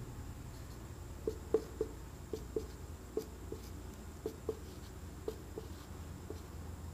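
Marker pen writing on a whiteboard: short squeaks and taps, often in pairs, as two-digit numbers are written down one after another.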